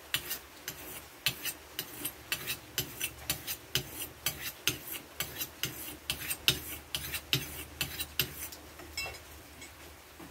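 Knife cutting raw beef on a round wooden chopping board: a quick run of sharp taps, about three or four a second, that stops about eight and a half seconds in.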